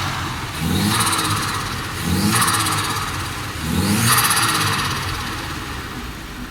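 Nissan S13's CA18DET turbocharged four-cylinder revved in three quick throttle blips, about one every one and a half seconds, each followed by a rapid fluttering chatter from the turbo as the throttle closes. The engine then settles back toward idle.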